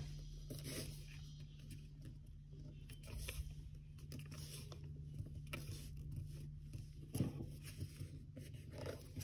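Faint rustling and scraping of 80 gsm origami paper being folded and pressed into a crease by fingers on a tabletop, in scattered soft touches, over a steady low hum.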